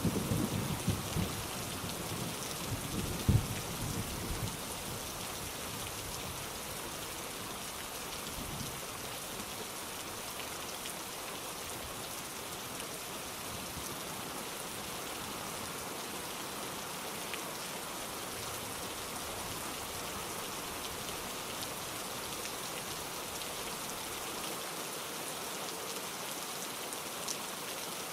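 Steady heavy rain falling on surfaces, a dense even patter. Thunder rumbles low in the first few seconds, with one sharp clap about three seconds in, then dies away, leaving only the rain.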